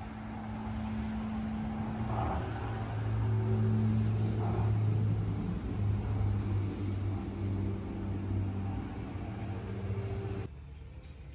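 A low, steady engine hum that grows louder in the middle and drops off abruptly about ten and a half seconds in.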